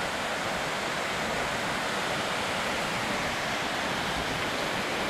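Steady rush of a waterfall and river in heavy flood, swollen after days of severe rain.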